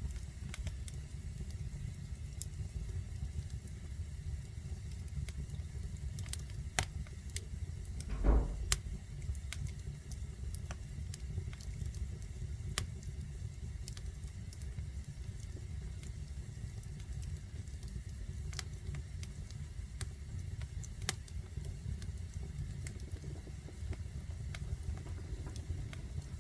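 Fire burning in a fireplace: a steady low rumble with scattered sharp crackles and pops, and one louder pop about eight seconds in.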